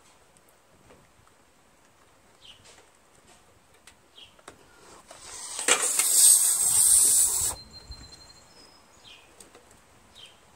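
A loud hiss lasting about two seconds. It swells in quickly and cuts off suddenly about seven and a half seconds in.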